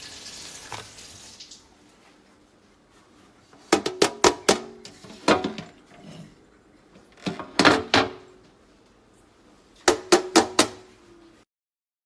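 Hard kitchenware knocking and clinking together in four quick clusters of clatter, some strikes leaving a brief ringing tone. The sound cuts off abruptly near the end.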